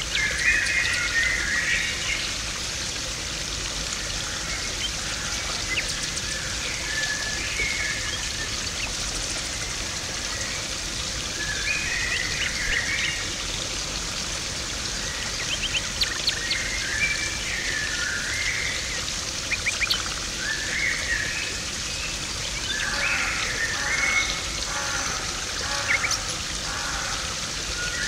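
Water splashing steadily into a garden pond, with small birds chirping in short calls again and again over it.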